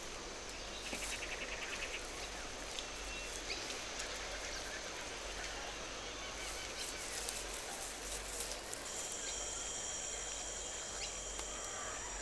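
Soft forest ambience of insects and birds. A rapid chirping trill comes about a second in, with a few scattered short calls, and from about nine seconds a steady high insect buzz sets in.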